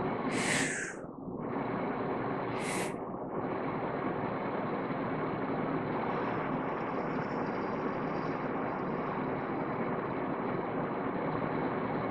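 Human breathing in a staged freediving breathe-up: two short, sharp inhalations about two seconds apart near the start, each filling a further section of the lungs, then a long soft exhale through pursed lips from about six to nine seconds in. A steady background hiss runs underneath and is the loudest sound.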